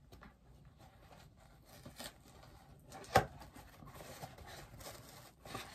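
A cardboard bobblehead box being handled and opened: faint scrapes and rustles, with one sharp knock about three seconds in.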